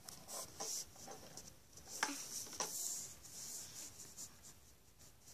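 Small plastic toys and toy food pieces being handled and shuffled close to the microphone: irregular light clicks and rustling, with a couple of sharper clicks about two seconds in.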